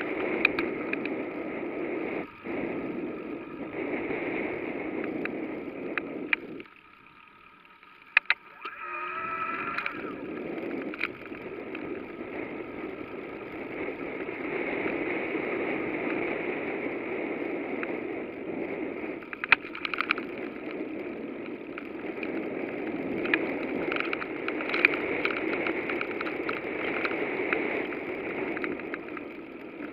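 Bicycle ride: steady wind on the microphone and tyre noise, with scattered rattling clicks. It drops out suddenly for about two seconds around seven seconds in, then comes back.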